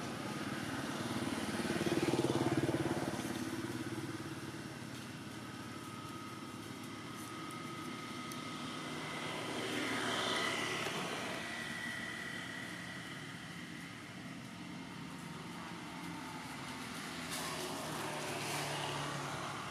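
Road traffic passing at a distance, the engine sound swelling and fading three times: about two seconds in, around ten seconds in, and near the end.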